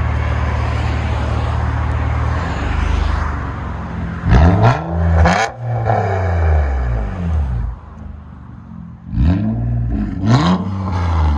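Straight-piped Nissan Altima 3.5-litre V6, its resonator and mufflers deleted, idling with a steady low drone and then revved in quick throttle blips. Two blips come about four seconds in and two more about nine seconds in, each rising and falling in pitch.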